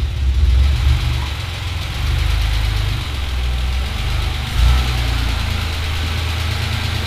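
Reliant Scimitar GTE's V6 engine running at low revs as the car is driven slowly into a workshop bay, a low steady rumble with a brief louder surge about four and a half seconds in.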